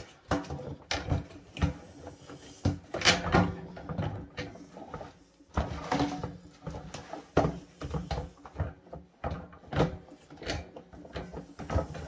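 Plastic powerhead of a Hart 6-gallon stainless steel wet/dry vac being lifted off and set back onto its steel drum, giving irregular knocks, clunks and rattles as it is worked into line.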